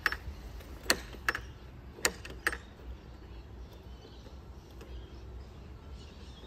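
Keyed gate lock-latch clicking as the key is turned and the latch is worked: five sharp clicks close together in the first two and a half seconds. The newly fitted lock is working as it should.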